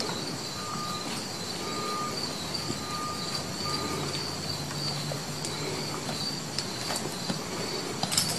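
Four short electronic beeps about a second apart, all at one pitch, over a steady high whine and a low hum.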